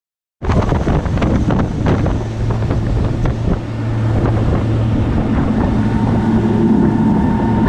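A motorboat's engines running with wind buffeting the microphone, starting suddenly about half a second in. There are a few sharp knocks in the first couple of seconds, and the engine hum turns steadier and more tonal later on.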